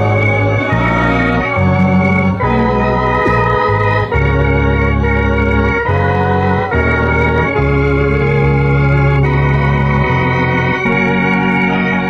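Electronic organ playing sustained chords over a strong bass, the chords changing about once a second, with one longer held chord a little past the middle.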